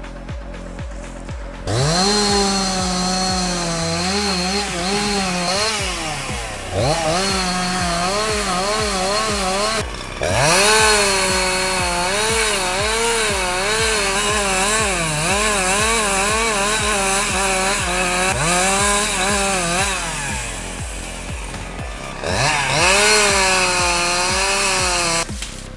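Chainsaw engine running at high revs while cutting, its pitch wavering up and down as the chain bites, easing off and picking up again several times. A steady music beat runs underneath.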